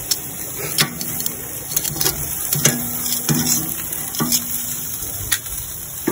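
Shrimp sizzling on a hot grill grate as metal tongs turn them, with several sharp clicks of the tongs against the grate.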